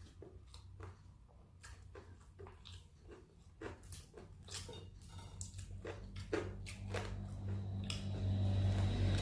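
Close-miked chewing and biting of crispy fried chicken with rice: irregular crunches and wet mouth clicks. A low steady hum runs underneath and grows louder near the end.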